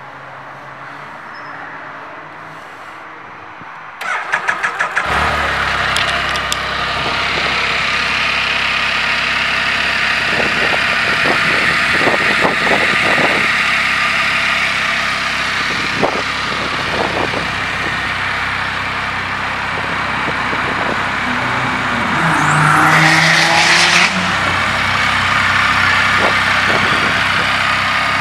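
Can-Am Spyder F3's Rotax 1330 three-cylinder engine cranked by the starter about four seconds in, catching after about a second and settling into a steady idle. A few seconds before the end it gets one short rev, rising in pitch and dropping back to idle.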